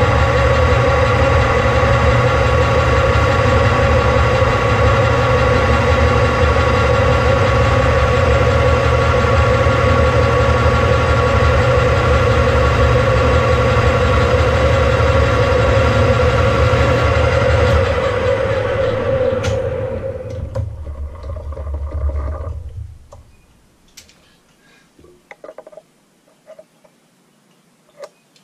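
Metal lathe running under power as it turns down a steel shaft: a steady mechanical drone with a whine of gears over a low rumble. About eighteen seconds in it winds down and stops, leaving a few faint clicks and taps of tools being handled.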